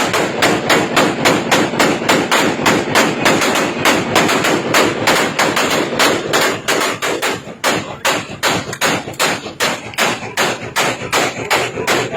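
Rapid, evenly paced gunfire: a long unbroken string of sharp shots, about four a second.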